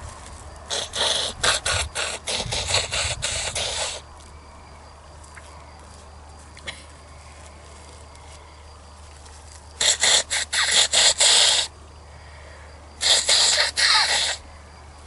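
A person blowing their nose hard into a tissue, in three bouts of several short blows each: a longer one of about three seconds, then two shorter ones near the end.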